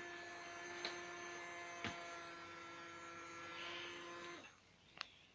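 Battery-powered bubble gun's small electric motor spinning its propeller with a faint, steady hum, which stops about four seconds in. A couple of faint clicks fall during the hum.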